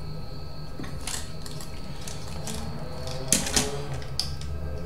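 Replacement motor in a DVD player's disc mechanism spinning under test with a steady low hum and a faint whine, turning as it should. Scattered light clicks from the mechanism, the loudest a little past three seconds in.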